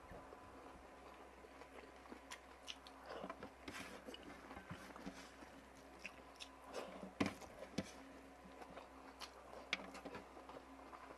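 A person chewing and biting food close to the microphone: irregular soft crunches, wet chewing and small clicks, with a few sharper bites.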